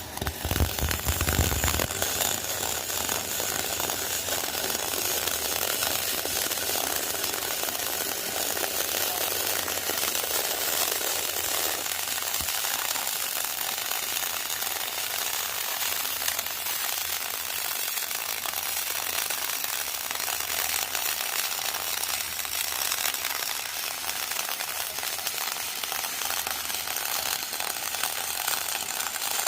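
TIG welding arc running steadily: a hiss with a fine, rapid crackle.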